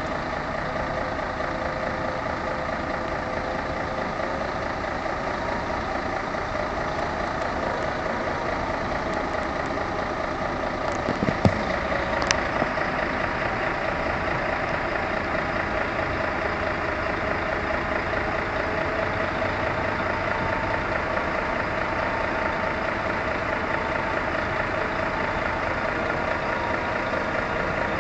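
Diesel engine of a mobile crane running steadily as it lowers a suspended tower-crane mast section. Two short sharp clicks come about eleven and twelve seconds in.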